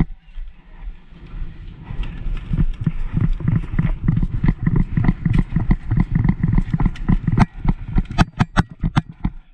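Running footsteps: a fast, uneven run of low thuds, with several sharp snaps near the end.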